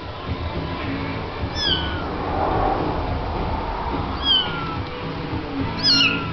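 Young blue Munchkin kitten meowing: three short, high-pitched mews, each falling in pitch, about a second and a half in, past four seconds, and near the end.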